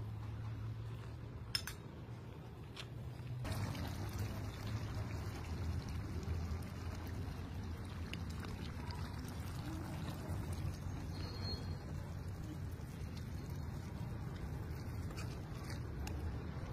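A steel spoon ladling and pouring thin curry gravy in a steel kadai, the liquid trickling and splashing, with a sharp clink of spoon on pan about a second and a half in.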